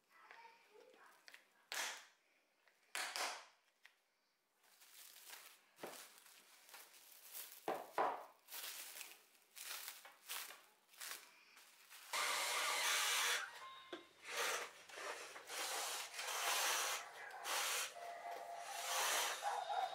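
Plastic cling wrap crinkling and rustling in short, separate rustles as it is stretched and wrapped around a glass food container. About twelve seconds in, a denser, near-continuous rubbing and rustling takes over.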